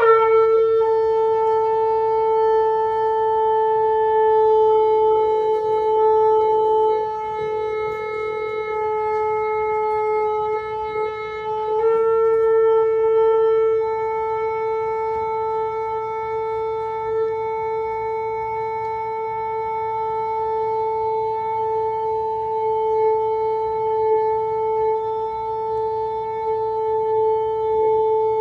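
Shofar (ram's horn) blown in one long, steady held note with a bright, reedy tone, starting sharply and lifting slightly in pitch about twelve seconds in before holding on.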